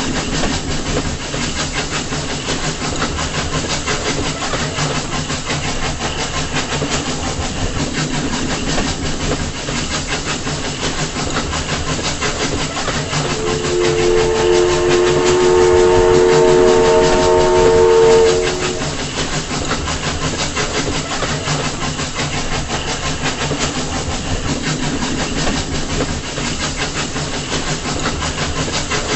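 Steam locomotive running, with a steady hiss and a rapid, even beat. Just before the middle its whistle blows once, several tones together, for about five seconds.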